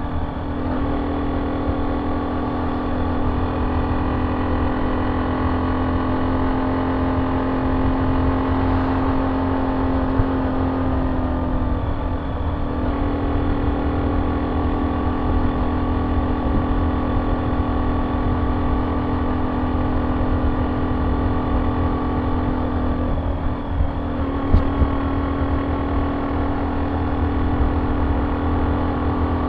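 Honda C70's 72 cc four-stroke single running through an aftermarket banana-style exhaust while riding at a steady cruise, with wind on the microphone. The note dips briefly twice, about 12 and 24 seconds in, then settles back to an even pitch.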